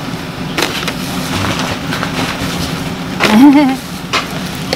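Busy outdoor street-market ambience: steady background noise with a low hum, a few scattered knocks and clatters, and a brief wavering voice a little over three seconds in, the loudest moment.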